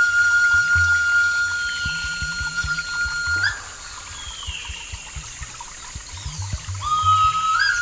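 Background music: a flute holds one long high note over soft low pulses, drops out about three and a half seconds in, and comes back near the end, stepping up in pitch.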